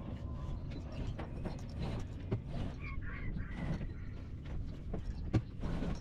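Rustling sailcloth as a torn headsail is lowered, over a low rumble of wind noise, with scattered knocks and one sharp knock about five seconds in.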